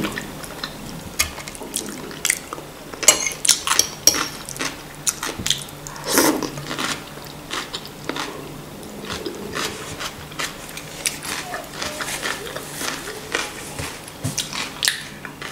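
A person eating: close chewing and mouth sounds from seaweed salad and scrambled zucchini with egg, with a metal fork clicking and scraping against a ceramic plate at irregular moments.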